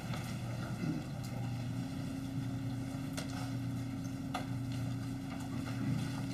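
Steady low hum of room noise, with a second steady tone joining about a second and a half in, and a few faint sharp knocks.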